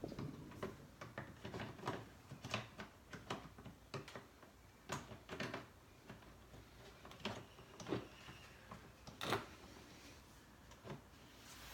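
Faint, irregular clicks, taps and short rustles of hands handling plastic door-trim parts and cables inside an open car door, with one sharper click about nine seconds in.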